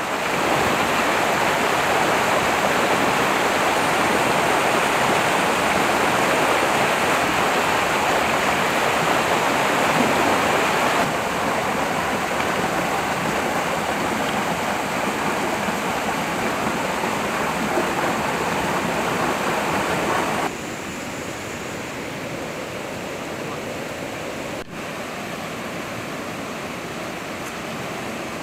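Shallow river rushing over rocks and boulders: a steady rush of water that drops abruptly in level about a third of the way in and again about two-thirds of the way in.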